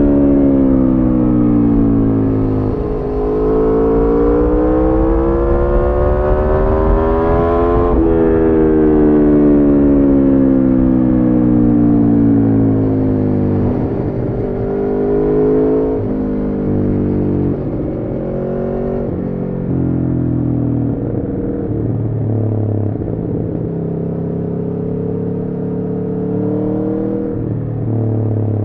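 Aprilia Tuono V4 engine through an Arrow slip-on exhaust with the catalytic converter removed, revving as the bike is ridden. Its pitch climbs for several seconds, drops sharply about eight seconds in and falls away, then settles to lower, steadier revs with short rises and dips in the second half.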